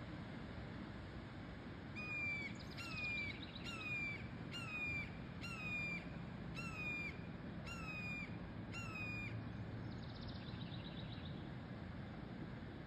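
Young red-tailed hawk giving a repeated begging call: a short, falling, whistled squeal about once a second, about eight times. Near the end comes a brief fast, higher trill.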